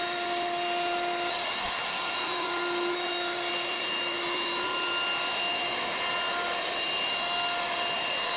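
Plywood CNC router cutting the outline of a half-inch Baltic birch plywood panel: its spindle runs with a steady whine over the rushing of the dust-collection hose. The whine drops out briefly about two seconds in, then returns.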